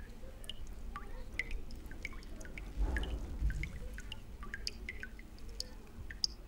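Water dripping in irregular drops, several a second, with a low rumble swelling briefly about three seconds in.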